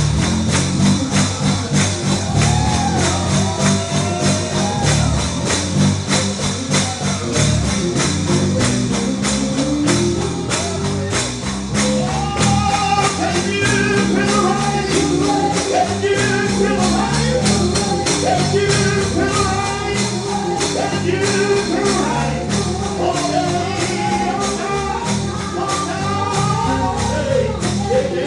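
Gospel music: a tambourine shaken and struck to a steady beat under singing voices, the voices coming through more strongly about halfway through.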